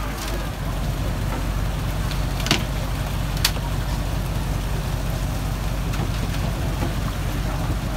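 Engine running steadily with a low drone, likely a fishing boat's diesel at the quay, with two sharp knocks about two and a half and three and a half seconds in.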